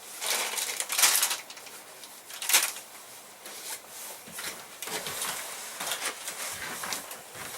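Rustling of camping gear being handled, in several short bursts, the loudest about a second in and another at about two and a half seconds, with softer rustles after.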